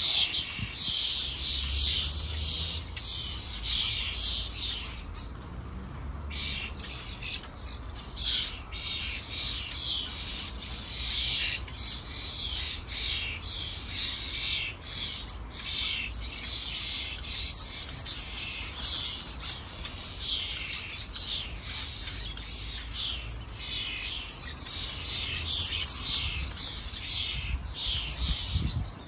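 House sparrows chirping: a dense, near-continuous run of short chirps from several birds.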